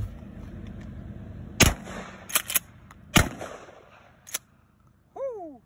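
Pump-action shotgun fired twice, about a second and a half apart, first a double rubber slug and then a solid rubber ball. The pump is racked between the shots with two quick clacks. A short voice falling in pitch comes near the end.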